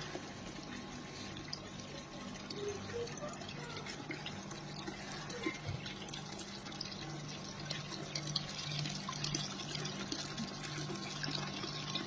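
Water trickling and splashing down the tiers of a three-tier granite waterfall fountain, a continuous flow with many small drips, over a steady low hum.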